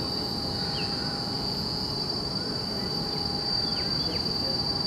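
Steady high-pitched drone of insects in the trees, with a few short bird chirps over a faint low background rumble.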